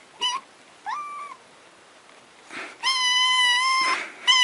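A cat meowing: a short meow at the start, a brief rising meow about a second in, then one long, high meow near the end.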